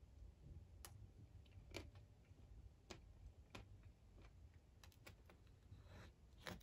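Faint, scattered clicks of a metal spoon against a foil crème brûlée cup and its caramelised sugar top, about seven clicks spread irregularly over near-silent room tone.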